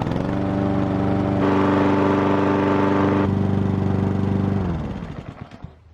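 Honda single-cylinder engine of a Toro Super Recycler push mower running at a steady speed. About four and a half seconds in it is shut off and winds down to a stop.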